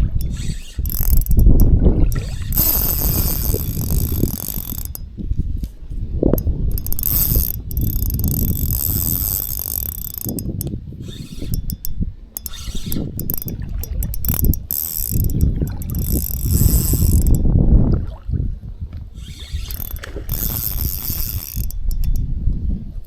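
Fishing reel being wound, a ratcheting, geared mechanical sound, with strong wind buffeting the microphone in heavy low rumbles.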